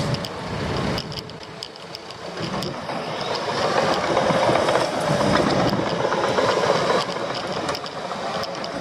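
Bulldozer running as it moves about, an engine drone with repeated clanking and rattling, growing louder about three seconds in and easing near the end.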